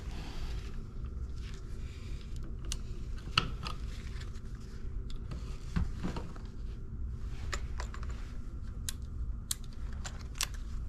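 Scattered light clicks and taps of test leads, wires and a receptacle being handled with gloved hands, over a steady low hum.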